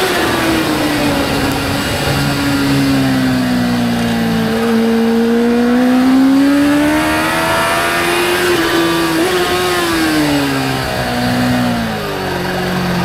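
Kawasaki Ninja H2R's supercharged inline-four heard onboard, at speed. The engine note falls as the bike slows into a corner, rises again for several seconds under power, then drops in steps near the end as it slows further.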